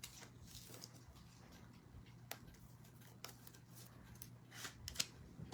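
Faint handling noises: scattered light clicks and rustles over a low steady hum, with a few sharper ticks and a small cluster near the end.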